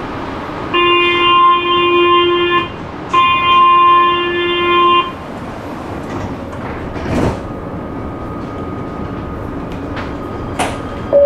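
Metro train's door-closing warning: two long electronic beeps of about two seconds each, a short gap between them, over the car's steady running noise. About two seconds later the sliding doors shut with a thud, and a sharp click follows near the end.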